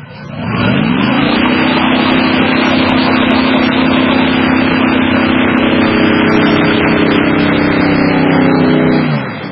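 Airboat engine and propeller throttling up within the first second, then running loud and steady at high throttle as the boat drives off, and throttling back near the end.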